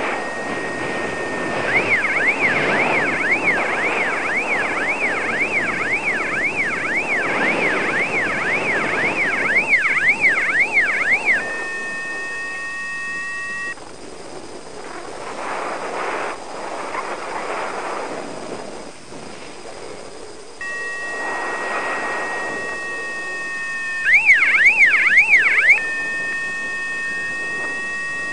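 Electronic beeper of a paragliding flight instrument, most likely the variometer, sounding a steady high tone that switches to a fast siren-like warble, about two warbles a second, for several seconds and again briefly near the end. Wind rushes on the microphone throughout. In the middle the tones stop for several seconds, leaving only the wind.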